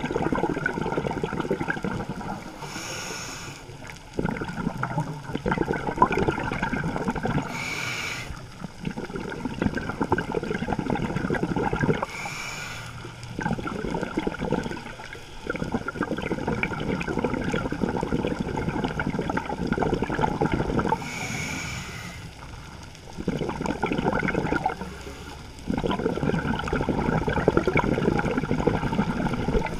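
Scuba diver breathing through a regulator, heard underwater: a short hissing inhale every few seconds, each followed by a long rush of exhaled bubbles.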